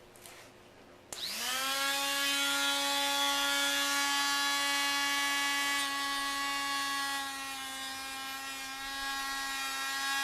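Makita GD0601 electric die grinder switched on about a second in, spinning up quickly and running at a steady high-pitched whine.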